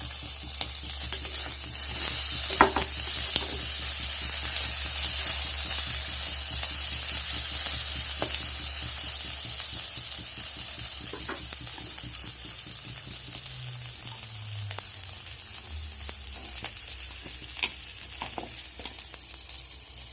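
Fried onion, ginger-garlic paste and chopped green chillies sizzling in hot oil in a kadai, with occasional clicks of the spatula against the pan as it is stirred. The sizzle is loudest a few seconds in and slowly dies down.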